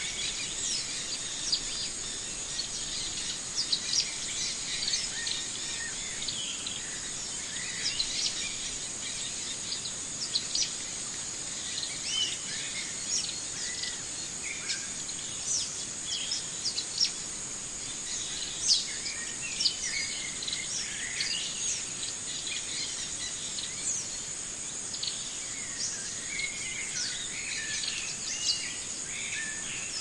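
Many small birds chirping and calling over a steady, high insect buzz, like crickets.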